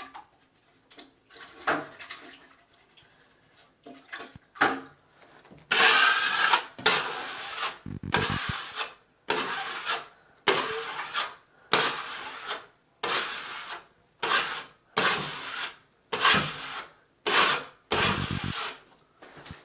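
Steel drywall knife scraping across semi-hard setting joint compound, knocking down the high spots. A few short scrapes, then about a dozen longer strokes roughly one a second.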